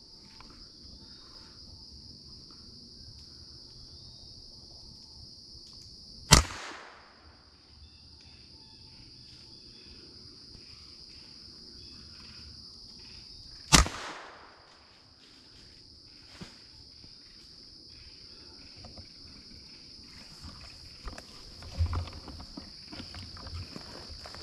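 Two gunshots fired up into a tree at small game, one about six seconds in and another about fourteen seconds in, each with a short echoing tail. A steady high insect drone runs underneath, and near the end footsteps rustle through brush.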